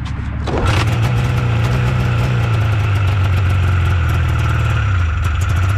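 1997 Yamaha Phaser II snowmobile's two-stroke twin engine catches about half a second in and runs steadily. It is running on gas sprayed into the cylinders through new plugs, and the owner suspects bad gas in the tank.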